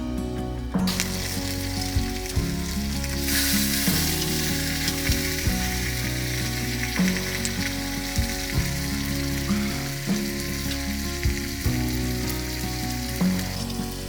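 Food sizzling and frying in a pan, a steady hiss that grows stronger about three seconds in, under background music with a steady beat.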